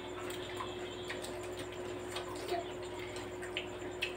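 Close-up eating sounds from several people chewing crispy fried chicken: scattered small wet clicks and smacks of mouths and lips, over a steady hum.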